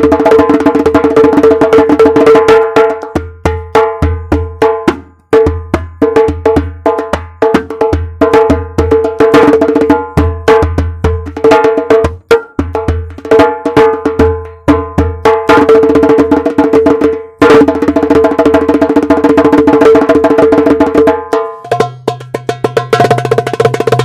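Homemade darbuka with a Power Beat head played in fast finger rolls and strokes, its head ringing steadily between the hits, with deep bass strokes mixed in. Near the end the playing switches to a decorated factory-made darbuka with a different ring.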